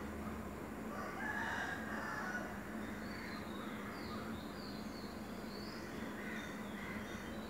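A rooster crows about a second in over a steady background hiss and low hum, with small birds chirping now and then.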